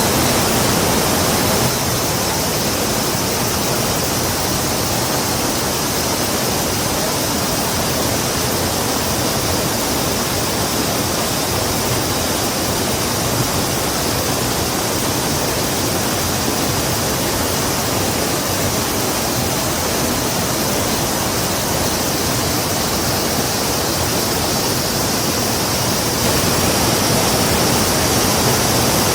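River water rushing steadily, an even hiss with no breaks, dipping slightly about two seconds in and rising again near the end.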